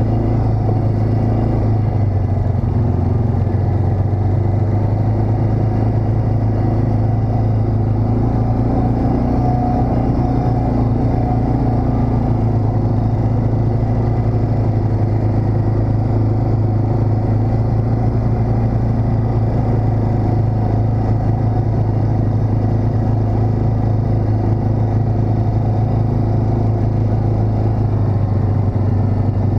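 An ATV engine running steadily during a ride: a constant low drone that holds the same pitch throughout, without revving up or down.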